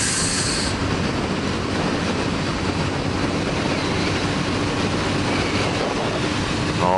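Wind rush and road noise from a motorcycle cruising at expressway speed, picked up by an action camera on the bike, with the steady hum of a Honda CB1100EX's air-cooled inline-four engine underneath.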